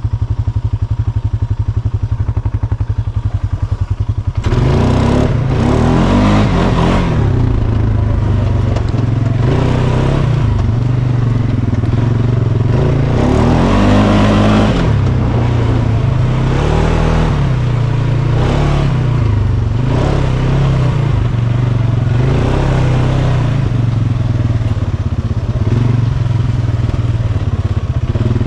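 Polaris Sportsman 570's 567cc single-cylinder four-stroke engine putting along at low revs with a rapid, even pulse. About four and a half seconds in the throttle opens and it revs up and down repeatedly as the ATV is ridden over dirt.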